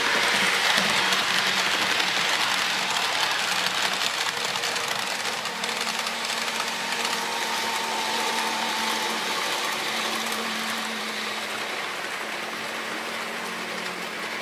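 OO gauge model train running past on the track: the locomotive's motor and the wheels rolling on the rails make a steady mechanical whir. It is loudest in the first couple of seconds and eases slowly as the coaches go by.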